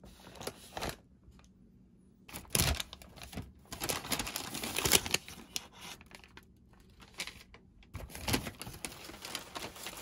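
McDonald's paper takeout bag and paper food wrappers rustling and crinkling as hands open the bag and lift out the wrapped items. The sound comes in uneven spells, loudest from about two to five seconds in.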